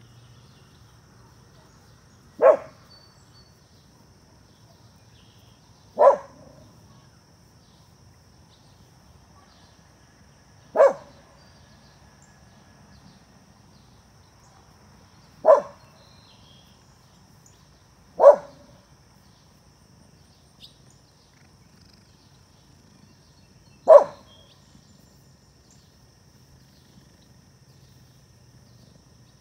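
A dog barking single barks, six in all, each short and sharp and several seconds apart.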